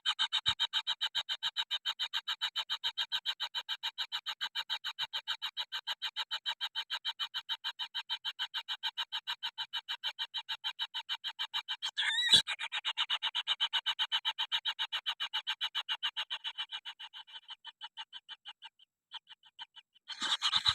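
Young kingfisher calling in a fast, steady run of about five calls a second. There is a single sharp knock about twelve seconds in, and the calls fade near the end, then start again.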